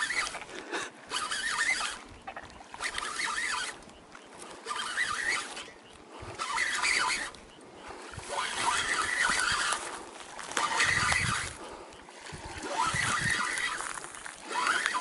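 A hooked snakehead being brought in on rod and reel: repeated short bursts of reel and splashing noise, about one every second or two.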